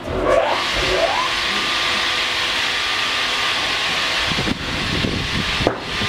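Triumph 900 Premium horizontal band sawmill running with its band blade sawing through a squared log. It sets in with a short rising whine in the first second, then goes on as a steady, loud, hissing saw noise, with two brief dips near the end.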